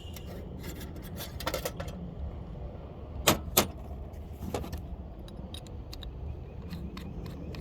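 Metallic clicks and rattles from handling a power drill, with two sharp clicks about three seconds in, over a steady low hum.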